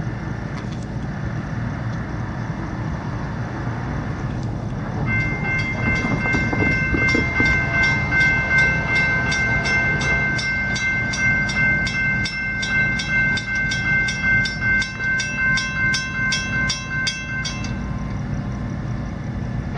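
Railroad crossing signal bell ringing rapidly with evenly repeated dings, over the low rumble of an approaching freight train. The bell starts about five seconds in and stops about two seconds before the end, leaving the rumble.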